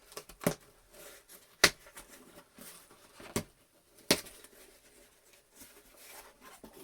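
A mail package being opened by hand: faint rustling of packaging broken by four sharp clicks or snaps, the loudest about one and a half seconds in.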